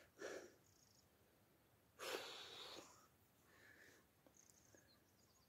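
Near silence outdoors, broken by a short breath about two seconds in, and a few faint high chirps near the end.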